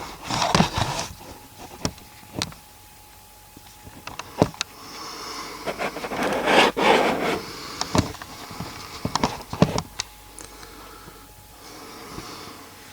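A man snoring in his sleep, with a snore every few seconds and several sharp clicks between them.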